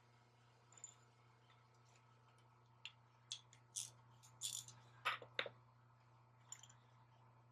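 Near silence over a steady low hum, broken in the middle by a handful of faint, short clicks and light knocks of things being handled.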